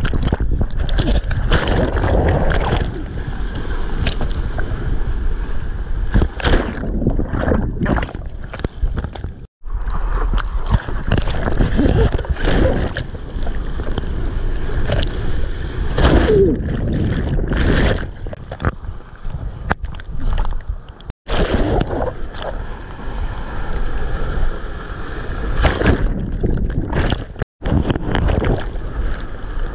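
Seawater sloshing and splashing against a camera held at the water's surface, with wind on the microphone and breaking whitewater rushing past. The sound cuts out abruptly for an instant three times.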